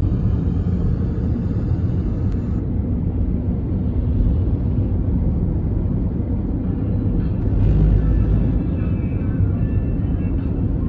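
Steady low rumble of a car driving along a highway, engine and tyre noise heard from inside the cabin, swelling briefly about eight seconds in.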